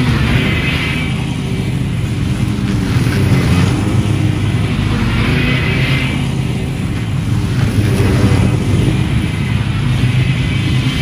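Two zero-turn riding mowers running steadily at high throttle, their blades cutting tall, dry overgrown grass. A higher cutting hiss swells twice, about a second in and again around six seconds.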